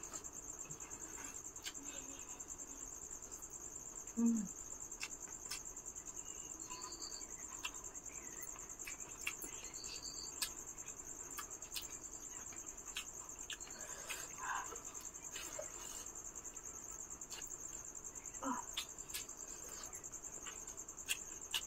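Steady high-pitched chirring of crickets, with scattered soft clicks and smacks of two people eating rice and chicken curry by hand from plates. A brief low vocal sound comes about four seconds in.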